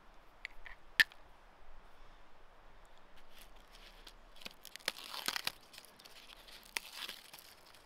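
Dry birch bark being torn by hand into thin strips: scratchy, papery tearing and crackling in short spells, loudest about five seconds in, with more near the end. A single sharp click sounds about a second in.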